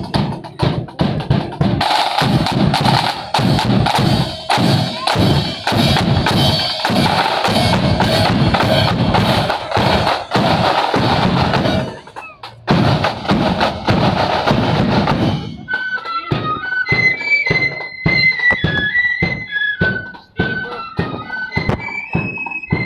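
Marching band drums, bass drum and snare rolls, beating out a steady parade rhythm with a short break just past the middle. About fifteen seconds in, the flutes come in with a high melody over the drums.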